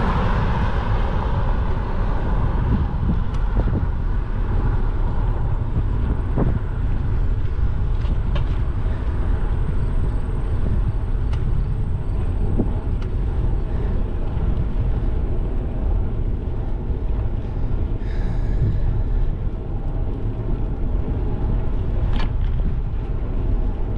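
Wind rushing over the microphone of a GoPro on a moving bicycle, a steady low rumble. A car passing fades out near the start, and a few light clicks come through.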